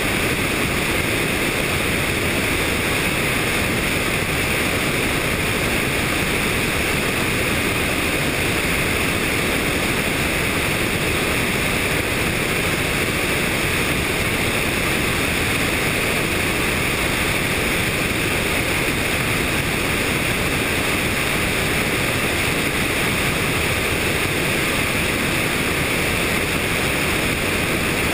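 Steady, unvarying noise of a helicopter in flight: its engine and rotors blending with wind across the camera's microphone into one even hiss and rumble.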